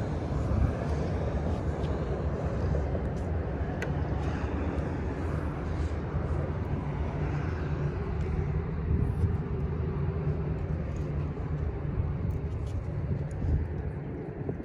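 Steady low rumble of outdoor background noise, with a faint click about four seconds in.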